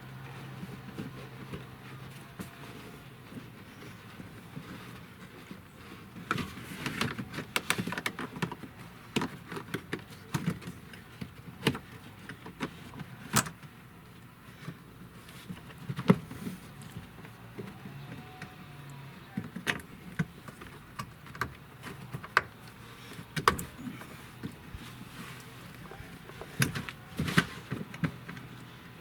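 Irregular clicks and knocks of plastic interior trim pieces being handled, fitted and pressed into place in a pickup cab, over a faint low hum at times.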